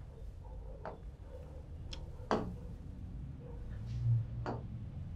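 Fingertip taps on a large touchscreen panel: four short, sharp clicks, the loudest about two seconds in, with a dull low thump just after four seconds in, over a low steady hum.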